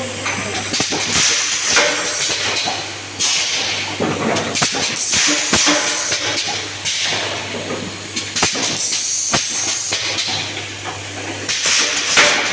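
Automatic confetti filling machine running: repeated bursts of hissing and sharp clacks, irregularly spaced, over a steady low hum.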